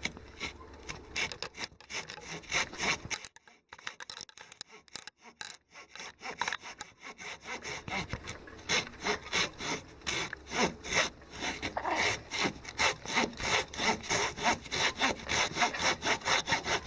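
Hand saw cutting through a cedar log with rhythmic back-and-forth strokes, worked one-handed. The strokes break off for a few seconds about three seconds in, then resume steadily.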